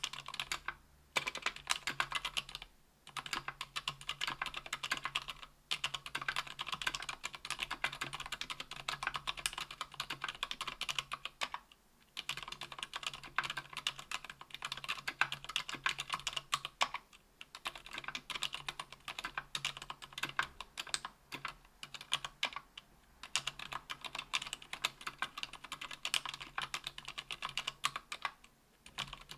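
Steady typing on a KBDfans Tofu 60% aluminium keyboard with lubed ZealPC Sakurios 62 g silent linear switches and GMK keycaps: a dense run of many keystrokes a second, broken by a few short pauses. A faint low hum sits underneath.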